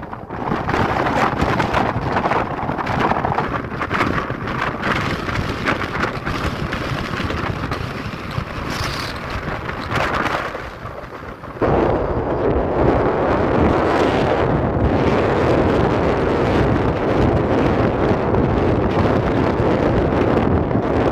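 Strong mountain wind gusting and rumbling against the microphone. It jumps abruptly louder about halfway through.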